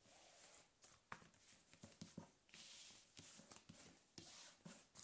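Faint sliding and tapping of cards being swept together across a cloth-covered table and stacked: several soft clicks and short scrapes, with one longer scrape about two and a half seconds in.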